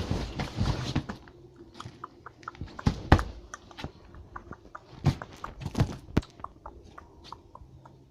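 Irregular sharp clicks and soft thumps, with the loudest thumps a little before and after three seconds in, at about five seconds and twice around six seconds.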